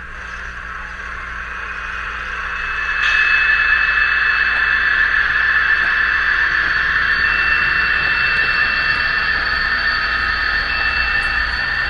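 Simulated BR 218 diesel engine sound from a Märklin mSD3 sound decoder, played through the H0 model locomotive's small onboard speaker: a steady, hissy engine drone with a few thin tones that grows louder and steps up about three seconds in, then holds. It stays the same as the locomotive pulls away, with no change under load.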